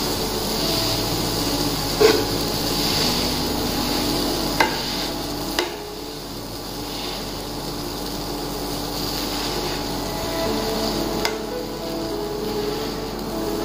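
A steel potato masher squashing boiled kidney beans in a nonstick pan, with a few sharp knocks as the masher strikes the pan, the loudest about two seconds in.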